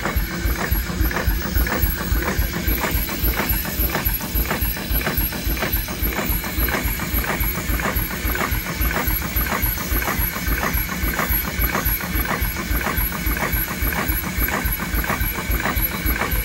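Case steam traction engine running at a steady speed: an even, rhythmic mechanical clatter from its cylinder, crosshead and valve gear, several beats a second.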